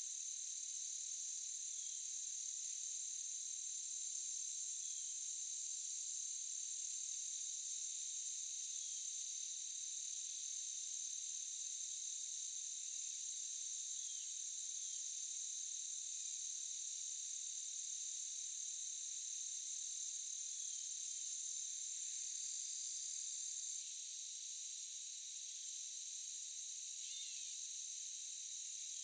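A chorus of crickets chirping steadily and high-pitched. The highest trilling breaks off in short pauses about every second and a half.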